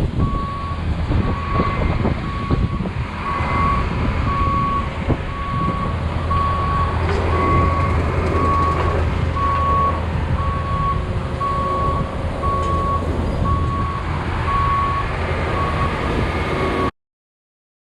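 Backup alarm on heavy equipment beeping steadily at one pitch about once a second, over a diesel engine running. All sound cuts off suddenly near the end.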